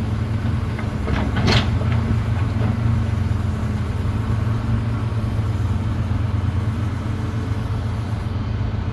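Heavy diesel engines of excavators and dump trucks running steadily with a low hum, with a short burst of noise about a second and a half in.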